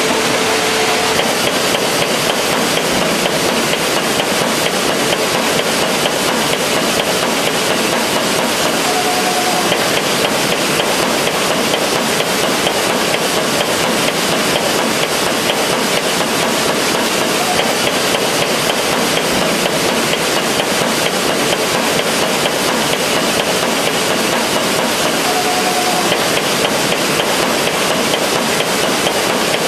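DESTA creasing machine running, creasing sheets in a multiple-crease run: a fast, steady mechanical clatter of rapid repeated strokes.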